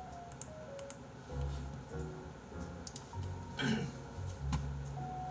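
Soft background music: a simple melody of held notes over a pulsing low bass line, with a few faint clicks and one brief noisy burst a little past the middle.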